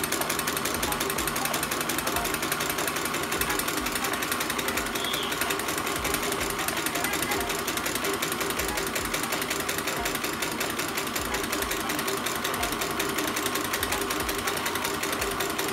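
Homemade tin-can Stirling engine running fast, its wire crank and linkage clattering in a rapid, even rattle.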